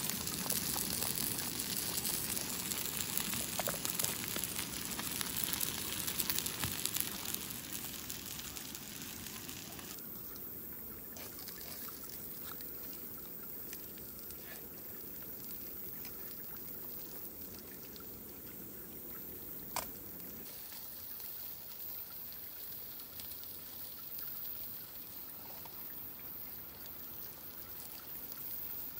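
Pot of mixed vegetables boiling hard on a gas canister camp stove, with the burner hissing. About ten seconds in it drops to a quieter, lower sound of sausages and potatoes frying in a pan, with one sharp clink of the tongs about twenty seconds in.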